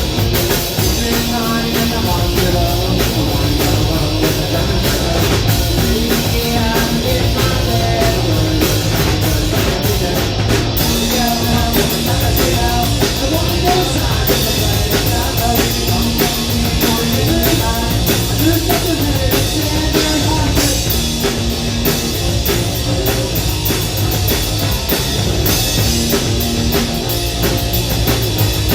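Live punk rock band playing: distorted electric guitar and bass over a drum kit with constant cymbal hits.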